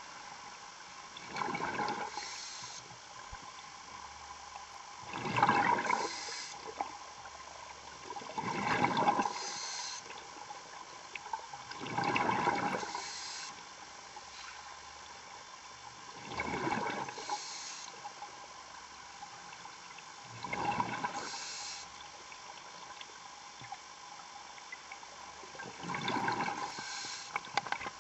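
Diver breathing through a regulator underwater: seven breaths, each a rush of air and bubbles, about one every four seconds.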